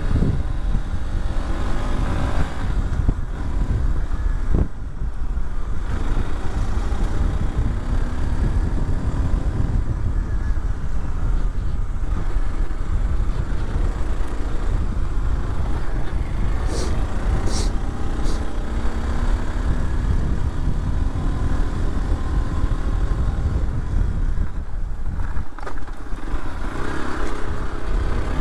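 Motorcycle engine running as the bike is ridden over a rough dirt road, its pitch rising and falling with the throttle over a heavy, steady low rumble. A few brief high clicks come about two-thirds of the way through.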